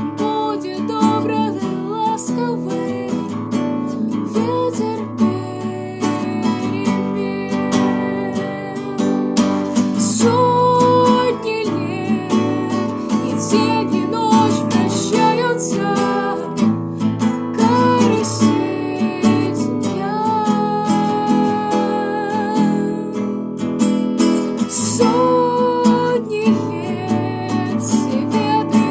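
Acoustic guitar strummed steadily, accompanying a girl's wavering singing voice.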